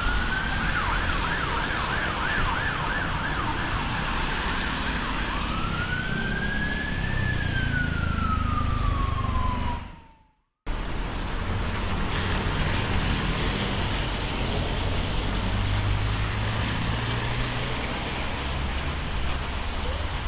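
Emergency vehicle siren: a fast yelping warble for a few seconds, then a slow wail that rises and falls once. The recording drops to a brief silence about halfway through, and after that there is only a steady hiss of rain and street noise.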